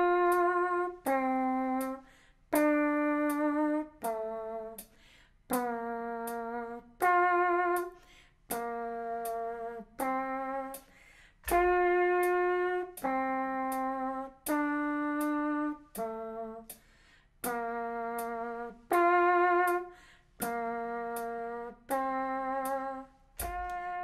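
Mouth trumpet: a woman buzzes her lips out the side of her mouth into a microphone, making a brassy, trumpet-like tone. She plays a slow line of eight held notes, the root notes of a chord progression starting on F, and goes through it twice.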